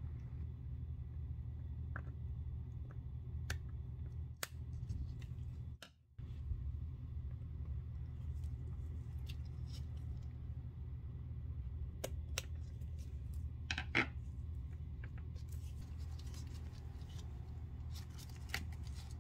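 Small metal handle fittings on a leather handbag clicking and tapping as the ends of a replacement strap handle are worked into place: a handful of scattered sharp clicks, one louder than the rest about two-thirds of the way through, over a steady low hum.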